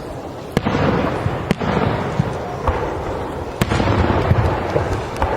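Aerial fireworks exploding: a string of sharp bangs, the loudest about half a second, a second and a half and three and a half seconds in, with a low rumble between them.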